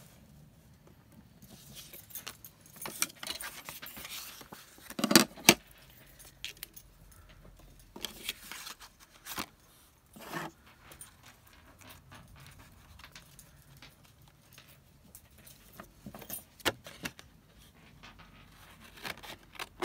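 Washi tape and a card tag being handled on a craft desk: a stretch of rustling, then a handful of sharp clicks and clinks, the loudest two close together about five seconds in.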